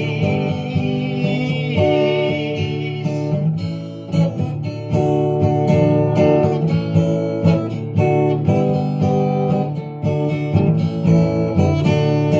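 Acoustic guitar music, picked and strummed: an instrumental break between sung verses of a song.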